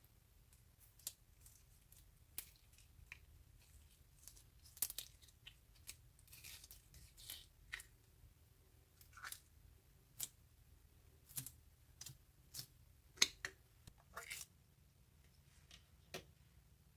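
Slime being worked by hand, giving irregular sharp clicks and short crackly snaps, about one a second, with a few longer crackles.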